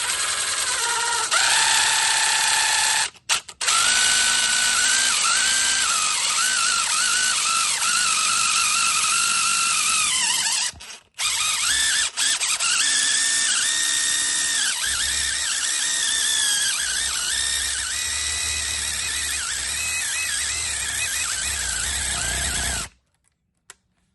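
Power drill spinning a tire-plug reaming bit into the puncture hole in a tire, the motor whine rising and falling with the trigger as the bit grinds the rubber hot enough to smoke. It runs in three long stretches with brief stops about 3 and 11 seconds in, and stops about a second before the end.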